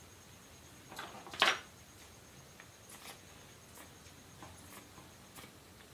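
Hand work with fabric and scissors on a workbench: a short, louder handling noise about a second and a half in, then a few faint snips as scissors cut a scrap of cloth.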